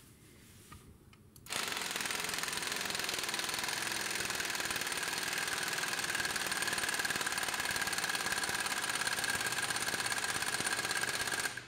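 3/4-inch drive pneumatic impact wrench hammering steadily against a torque tester for about ten seconds, starting about a second and a half in and stopping just before the end. The gun is running short of its rated 90 psi because of the pressure drop in the air supply.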